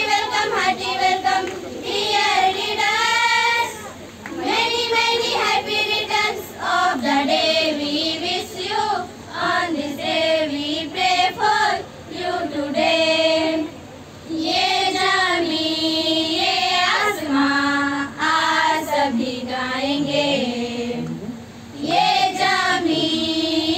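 A group of schoolgirls singing a Hindi welcome song together, in phrases of a few seconds with short breaks between them.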